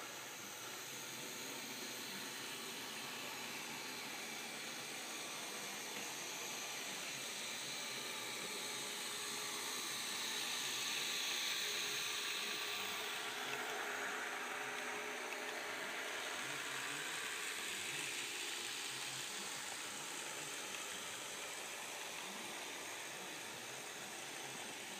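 Märklin mini-club (Z scale) model trains running on the layout's track: a faint steady hiss and whir of small motors and wheels. The sound swells for a few seconds near the middle as a passenger train runs past close by.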